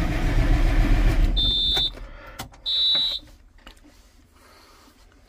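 John Deere 7420 diesel tractor's starter cranking the engine for about two seconds without it catching, the newly changed fuel filters not yet filled with fuel; then the dashboard warning buzzer gives two short high beeps.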